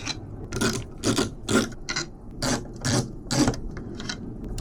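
A screwdriver backing out a long case-fan screw, with a short rasping click on each turn at an even pace of about two a second.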